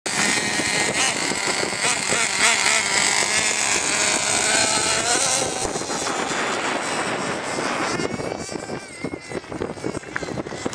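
Small two-stroke glow-fuel engine of a nitro RC car running at high revs as the car drives off, its buzzing pitch rising and falling with the throttle. From about eight seconds in it grows fainter as the car speeds away.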